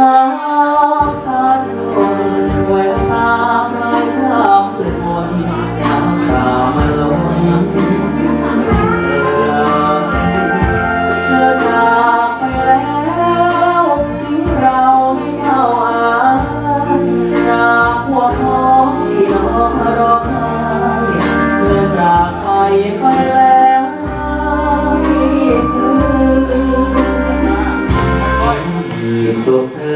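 A man singing a Thai luk thung song live into a handheld microphone, over a backing band track with a steady beat.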